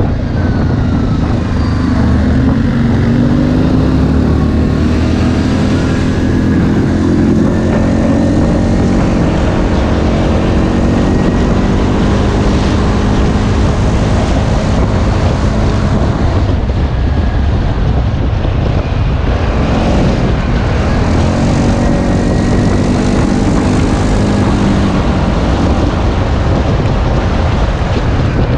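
ATV engine running hard off-road, its pitch rising and falling with the throttle, with a dip about two-thirds of the way through before it climbs again.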